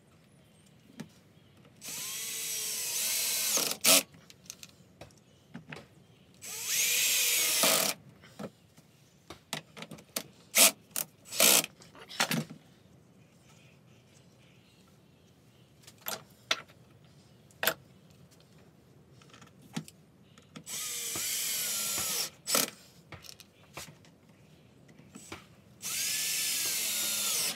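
Cordless drill-driver run in four short bursts of a second or two each, driving screws into plywood; its motor pitch rises and sags under load. Between the bursts come light clicks and knocks of wooden pieces being handled on the bench.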